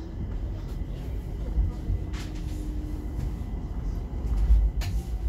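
Stockholm metro train heard from inside the car as it rolls slowly into a station, a low rumble with a faint motor hum that drops in pitch as it slows. Two sharp clacks come about two and five seconds in.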